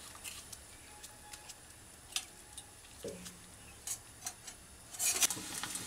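Mostly quiet, with a few faint scattered clicks as salt is added to an aluminium pan of flat beans in water. About five seconds in, a short hiss comes up and settles into the low steady sound of the water boiling.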